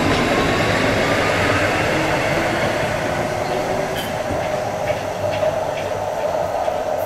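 Articulated low-floor tram running past on light-rail track, a steady rumble of wheels and motors. A faint motor whine rises in pitch over the first second or so, and a steady hum and a few light clicks follow in the second half.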